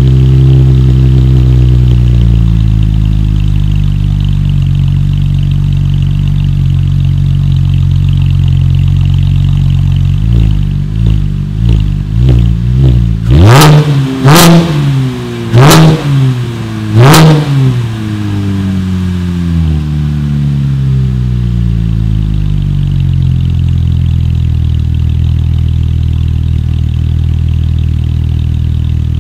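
Fifth-generation Chevrolet Camaro RS 3.6-litre V6 through an MBRP XP Series 3-inch cat-back exhaust, idling steadily. About ten seconds in it is blipped lightly a few times, then revved hard four times in quick succession, and it settles back to idle.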